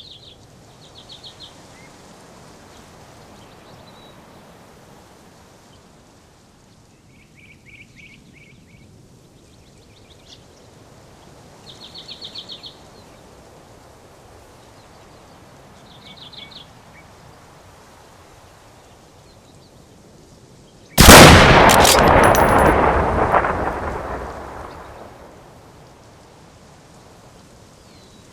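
Small birds singing short, rapid trills every few seconds over a faint steady background hiss. About two-thirds of the way in, a sudden very loud bang dies away over three or four seconds.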